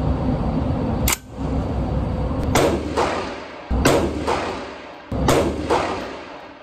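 Mk18 5.56 mm carbine firing slow, deliberate single shots about a second and a half apart, each ringing out in the reverberant indoor range. After a sharp crack about a second in, three louder shots follow, each with a fainter echoing crack just after it.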